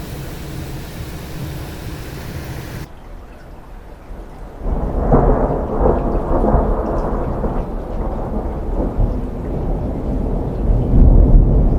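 Rain falling with a steady hiss that cuts off abruptly about three seconds in; from about four and a half seconds a loud low rumble of thunder builds and carries on, swelling again near the end.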